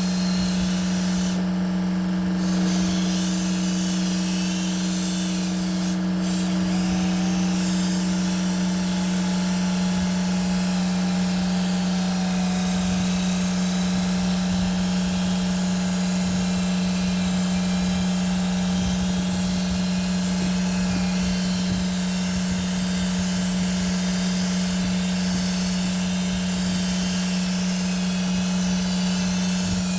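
A power tool's motor running steadily, a constant unbroken hum.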